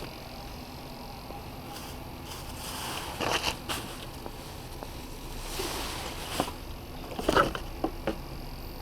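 Cardboard boxes and packaging being handled and rummaged through: a few bouts of rustling and scraping, with sharper knocks about three seconds in and again near the end, over a steady faint background hum.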